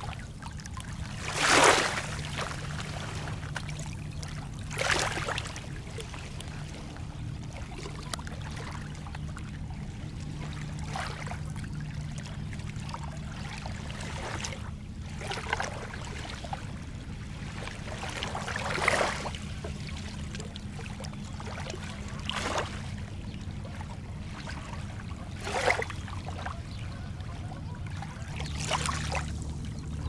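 Small lake waves lapping onto a pebbly sand beach, each wash swelling and fading about every three to four seconds, the loudest near the start. A steady low rumble runs underneath.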